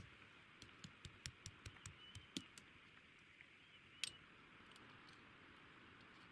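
A quick run of light clicks and taps, about ten in two seconds, then a single sharper click a little later, over a faint steady hiss.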